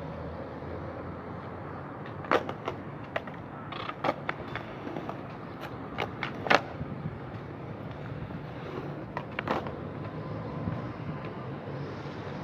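Skateboard wheels rolling over concrete, with a series of sharp clacks as boards pop and slap down during flat-ground trick attempts, mostly between about two and seven seconds in and again about nine and a half seconds in.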